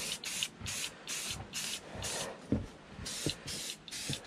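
A can of Krylon black spray paint sprayed in short hissing puffs, about two or three a second, misting paint onto carved wood. There is a brief pause about two seconds in.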